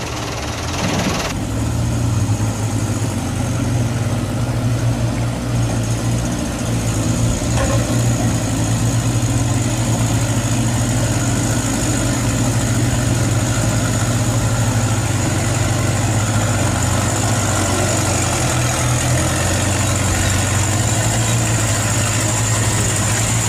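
Heavy diesel engine running steadily with a low, even hum that picks up about a second in and holds.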